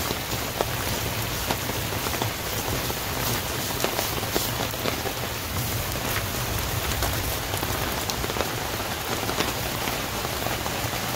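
Steady rain from a thunderstorm, with many sharp individual drop ticks scattered through it.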